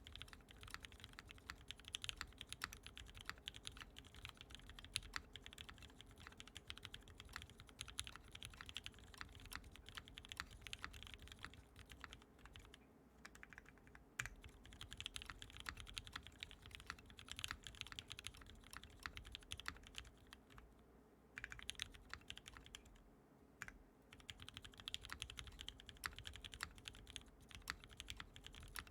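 Typing on a mechanical keyboard: a fast, continuous run of key clicks, broken by a few short pauses midway.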